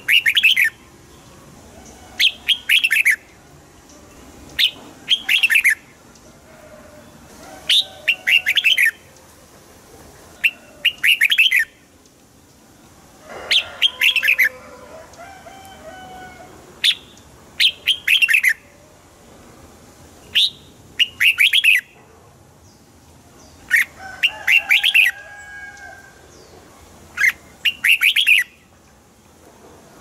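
Red-whiskered bulbul singing: short, loud bursts of quick chirpy notes that repeat every few seconds, with fainter, lower notes between the bursts.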